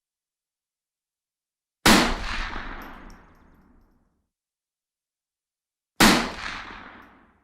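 Two single rifle shots about four seconds apart, each a sharp crack followed by a long fading rumble of echo.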